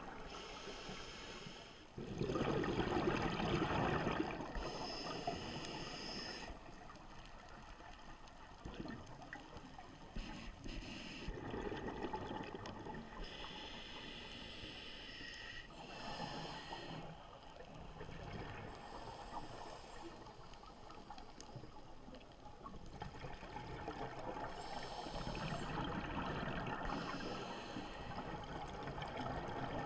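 Scuba breathing heard underwater: hissing inhalations through a regulator alternating every few seconds with louder bubbling exhalations.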